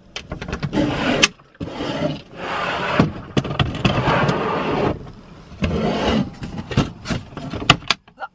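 Porta Potti portable camping toilet being pushed and shifted into a plywood cabinet: plastic scraping and rubbing on the wooden floor, broken by sharp knocks and clicks, the loudest near the end.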